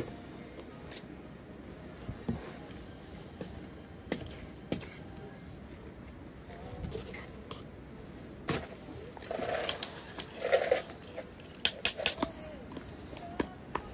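Shredded cabbage and herbs being handled and dropped into a stainless steel camping cup, then a metal spoon stirring coleslaw in the cup, clinking and scraping against its sides. The sharpest clinks come in the second half.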